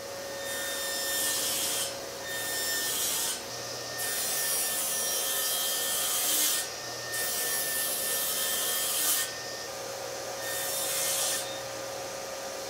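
Table saw running steadily, with five cuts into walnut blocks. Each cut is a stretch of louder, high cutting noise over the steady hum of the motor and blade.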